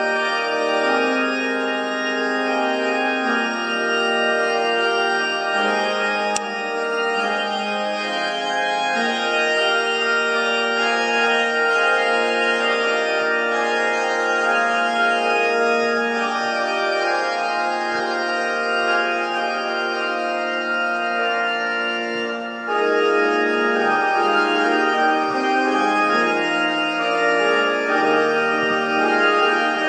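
Organ music: slow sustained chords that change every second or so, swelling louder and fuller after a brief dip about three-quarters of the way through.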